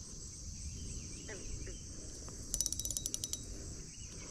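Spinning reel's drag clicking as line is pulled off to check the drag setting: a rapid run of about ten clicks lasting just under a second, starting about two and a half seconds in.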